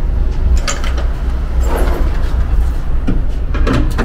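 Hand tools clattering and knocking as they are taken from a tool cart drawer and handled, over a steady low hum.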